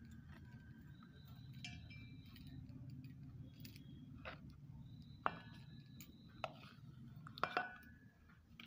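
A metal spoon lightly tapping and scraping against a stainless steel bowl while butter is scooped onto powdered sugar: faint scattered clicks, a few with a short ringing note, over a low steady hum.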